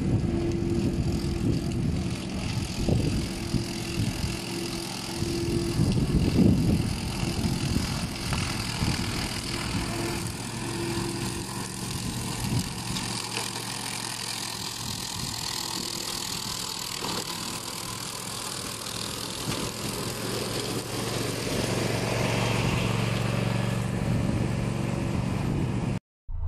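Engine of a Grillo Climber 9.22 hydrostatic bladed brush mower running steadily while it mows through tall dry weeds, swelling louder a couple of times. It cuts off suddenly near the end.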